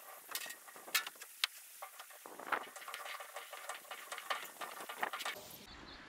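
Irregular metal clicks, taps and short scrapes as a hand tool grips and turns a fuel-filter fitting wrapped in a rag.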